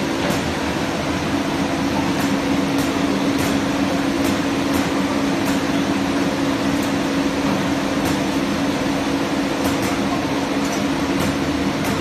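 FS Shark 500 convertible stacker running with cigarette packs: a steady machine hum with a constant low tone, and light clicks about one to two times a second.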